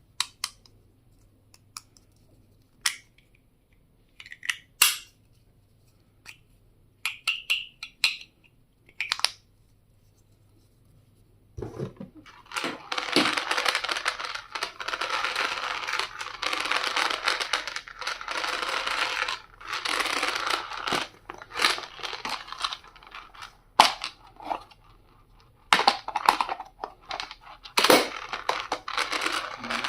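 Stationery packaging being handled and unwrapped: scattered clicks and taps, then, after about twelve seconds, some ten seconds of continuous crinkling and rustling of packaging, followed by more irregular rustles and knocks.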